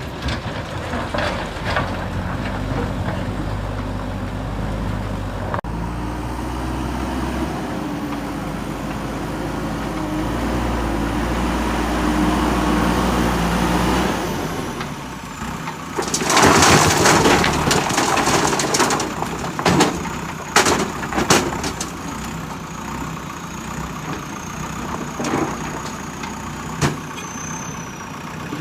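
JCB backhoe loader's diesel engine running steadily under load. About sixteen seconds in comes a loud spell of scraping and clattering with several sharp knocks, then a few single knocks over the engine.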